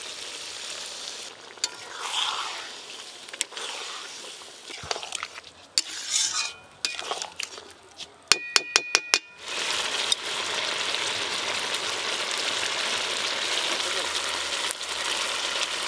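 Chicken curry sizzling in a metal kadai just after a little water has been added, with a spatula scraping and knocking against the pan; around the middle comes a quick run of about six sharp metal clinks. For the last several seconds the curry keeps up a steady, even sizzle.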